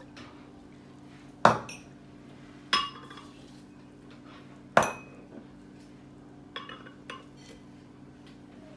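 A small glass cup clinking against a glass jug as ingredients are poured and knocked out of it: three sharp clinks a second or two apart, the middle one ringing briefly, then two lighter taps near the end. A low steady hum runs underneath.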